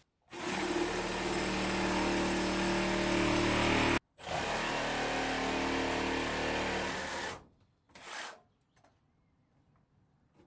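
Electric saw running under load, cutting into a wooden roof beam. It runs steadily for about three and a half seconds, cuts off abruptly, and runs again for about three seconds, with one short burst a little later.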